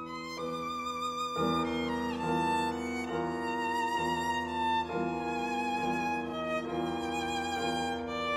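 Viola and piano playing a slow, singing passage: the viola holds long notes with vibrato over sustained piano chords, with new chords and notes entering every second or two.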